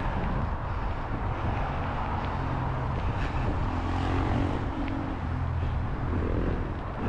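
Steady low rumble of wind and tyre noise from a bicycle being ridden, with a faint drone in the middle few seconds.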